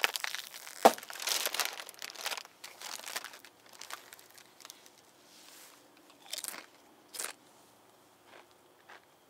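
Tortilla chips (Doritos) being crunched and chewed, dense for the first two to three seconds, with one sharp crack about a second in that is the loudest sound, then thinning to a few scattered crunches.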